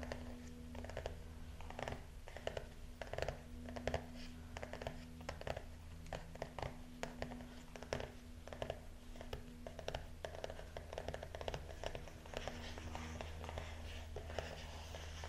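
Writing and paper handling on a small notepad: irregular light scratches and taps, over a steady low electrical hum.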